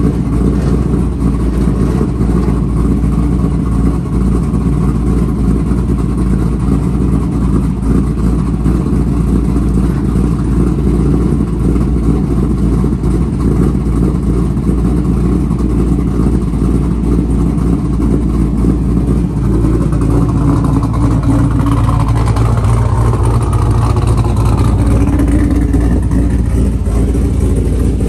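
Car engine idling steadily, most likely the parked fourth-generation Pontiac Firebird's, with its note shifting about twenty seconds in.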